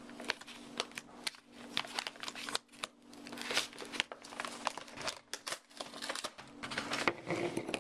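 Brown paper mailing package crinkling and rustling as hands work at it, with many small sharp clicks and scrapes.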